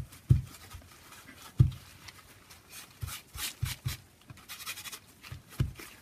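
Hands pressing and rubbing a glued paper cutout flat onto a journal page with a tissue: soft paper rustling and rubbing, with several dull knocks against the table.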